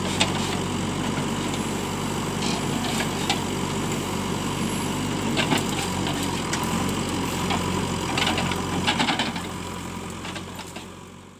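JCB 3DX backhoe loader's diesel engine running steadily while it works the backhoe through brush, with occasional short sharp knocks. The sound fades out near the end.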